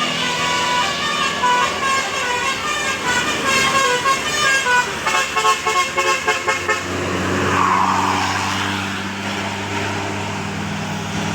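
Bus telolet basuri musical air horn playing a melody of short stepped notes, which get quicker before stopping about six and a half seconds in. Then the bus engine runs as a steady low drone, with a rushing swell as it passes.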